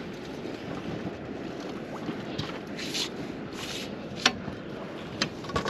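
Steady wind and water noise with two short hissing swishes about three seconds in and a few sharp clicks or knocks in the second half.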